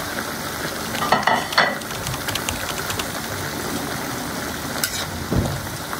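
Chicken and mixed vegetables sizzling in a hot wok, a steady frying hiss, with a few brief clicks about a second in and near the end.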